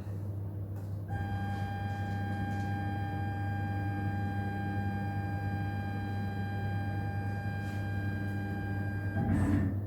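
CNC router's Z-axis stepper motor whining at one steady pitch while the head moves to measure Z height. It starts about a second in and stops shortly before the end, over a constant low electrical hum.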